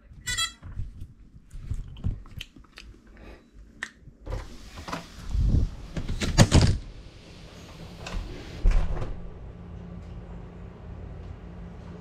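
Clicks, rustling and knocks as a small FPV quadcopter is handled and bumped about, with a loud clatter in the middle and a thump as it is set down on a hard tiled floor. After that a steady low hum runs on.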